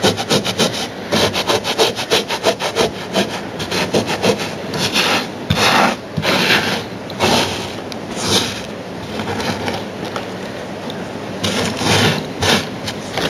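A hand sweeping loose model-railway ballast stones across a wooden baseboard: a quick run of short scraping strokes for the first few seconds, then slower, longer scrapes.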